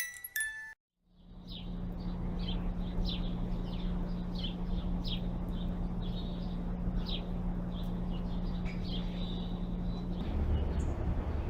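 Birds chirping repeatedly in short falling calls, about two a second, over a steady low hum and an even rushing noise. The hum changes near the end.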